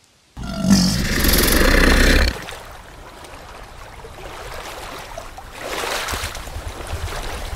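Water sound effects for a swimming crocodile: a loud rush of splashing water with a low rumble for about two seconds, then quieter flowing water that swells again near the end with a low pulsing rumble.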